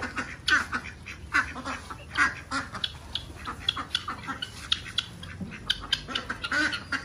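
A flock of hungry domestic ducks quacking, many short calls in quick, irregular succession, as fresh-cut grass is brought and dropped for them to feed on.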